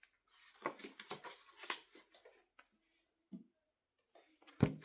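Faint rustles and clicks of a paper book being handled as its pages are turned, ending with a sharper thump near the end.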